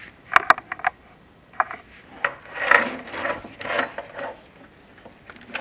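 Sharp clicks and knocks, a quick cluster of them under a second in, then a rough scraping stretch of a second or so and a last click near the end: the chimney inspection camera rig being handled and moved against the flue.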